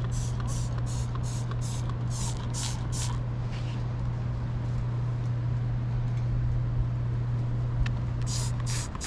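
Trigger spray bottle of bug and streak remover squirted in quick strokes onto an RV's painted front cap. There are about three sprays a second for the first three seconds, then two more near the end. A steady low hum runs underneath and cuts off near the end.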